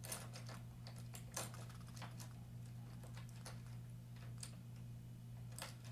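Small plastic construction-set pieces clicking and rattling as they are handled and sorted, a scatter of light irregular clicks over a steady low hum.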